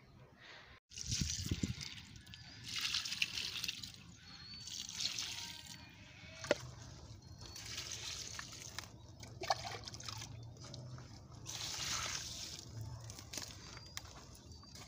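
Water poured from a plastic jug onto the soil around garden plants, splashing and trickling in about four separate pours.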